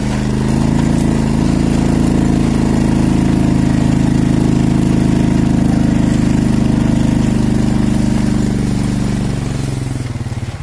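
Small Chinese motorbike engine revving up about half a second in and held steady under load on a steep climb, then easing off near the end.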